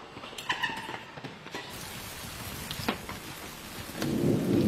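Steady hiss of falling rain, with a low rumble of thunder coming in about four seconds in. It follows a few knocks and thumps of a scuffle at the very start.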